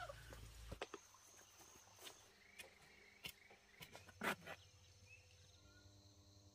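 Faint outdoor ambience with a thin high steady tone, a few short high chirps and scattered soft clicks, the loudest click about four seconds in.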